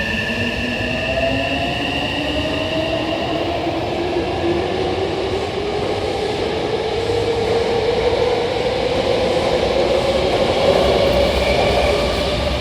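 Hankyu 9000 series electric train pulling away, its inverter-driven traction motors whining in several tones that rise steadily in pitch as it accelerates, over the rumble of the wheels. It grows louder toward the end.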